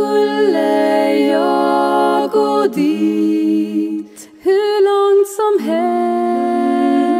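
Four women's voices singing a cappella in close harmony, holding sustained chords that change every second or so, with short breaths between phrases.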